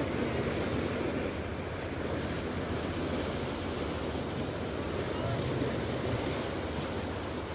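Sea waves washing in, a steady rushing wash with slow rises and falls, with wind rumbling on the microphone.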